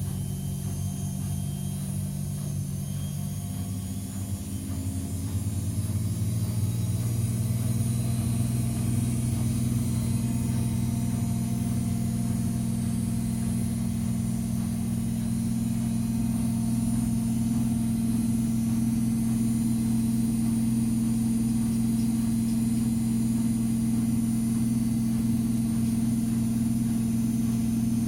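AEG Lavamat washing machine's drum motor spinning up, its hum rising in pitch over the first five or six seconds, then running steadily at speed.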